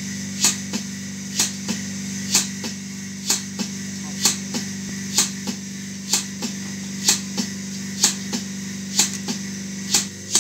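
Bucket milking machine running while milking a cow: the pulsator on the milk-can lid clicks and hisses in pairs about once a second, a loud stroke and then a softer one, over the steady hum of the vacuum pump.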